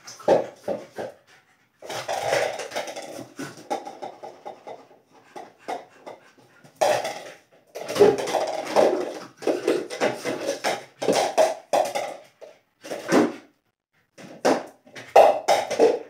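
Lhasa Apso puppy making noises as it plays: irregular bursts, some brief and some about a second long, with short pauses between them.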